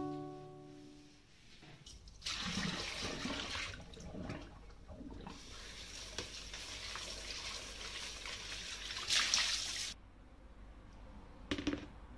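Kitchen tap water running onto a white plastic basin in a sink as it is rinsed, a steady rush that swells briefly and then cuts off about ten seconds in. A short knock follows near the end as the basin is set on the draining board.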